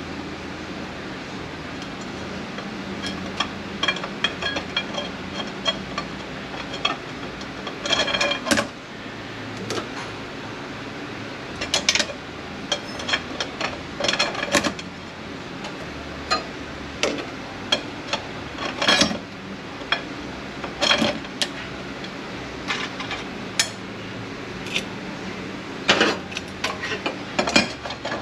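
Steel automatic-transmission parts clinking and clattering as they are handled on a workbench, with irregular sharp metallic knocks, some ringing briefly, over a steady background hum.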